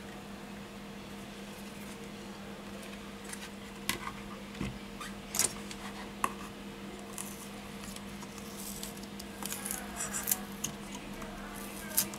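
Scattered light clicks and taps from hands handling a tablet display module and its flex cable on a silicone repair mat, with a cluster of clicks near the end, over a steady low hum.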